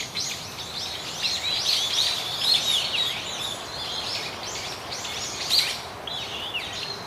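Small birds chirping in many quick, high, curving notes, several a second, over a faint steady hiss.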